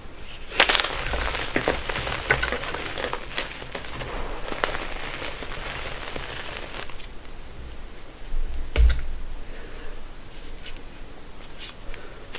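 Gym chalk being crushed by hand: dense dry crunching and crackling of crumbling chalk that thins out to scattered crackles about seven seconds in, with a dull thump about nine seconds in.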